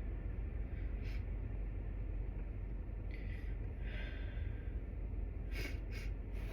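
A person's hitching, gasping breaths building up to a sneeze, then two quick sharp bursts near the end: stifled sneezes, held in. A steady low background hum runs underneath.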